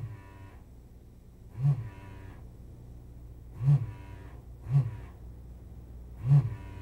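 Vacuum pump of a PACE desoldering station, feeding an SX-70 desoldering handpiece, switching on in five short bursts, each a brief low hum with a thud at its start. A steady low hum runs between the bursts. The suction is drawing molten solder off the surface-mount pads.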